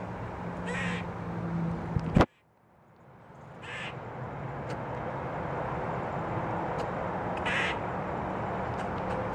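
Black squirrel giving short alarm calls, one about every three to four seconds, three in all. About two seconds in comes a single sharp, loud click, after which the background drops out for about a second and slowly comes back.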